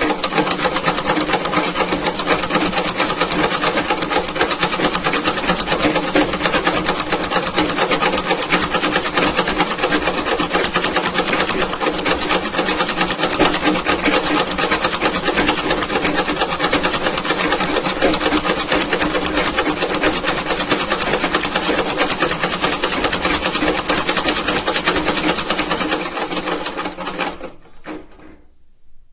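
Antique sewing machine running steadily at speed, a rapid, continuous mechanical clatter that fades away near the end.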